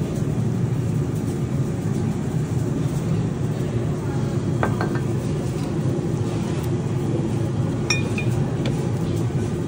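Food court ambience: steady crowd chatter, with dishes and cutlery clinking a few times about halfway through and again near the end.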